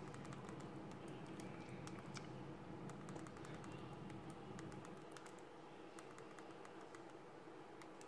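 Faint, irregular clicking of a Nokia 6700 Slide's navigation keys pressed by a thumb while scrolling through menus, over a faint steady hum.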